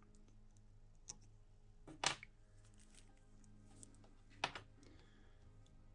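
Small scissors snipping off excess material at a fly-tying vise: a few sharp clicks, a faint one about a second in and louder ones about two seconds in and again past four seconds, over a steady low hum.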